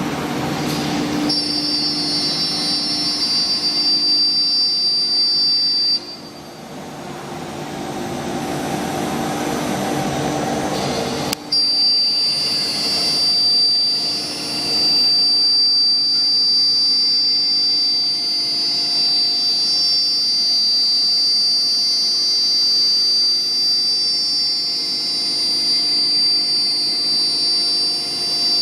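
CNC router running, its spindle giving a steady high-pitched whine over lower machine noise. The whine cuts off abruptly about six seconds in and comes back sharply about five seconds later, then holds steady.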